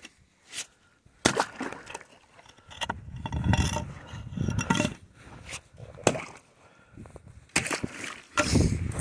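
Scattered knocks and sloshing of slush and broken ice in a hole chopped through pond ice, with stretches of low rumbling handling noise on the microphone.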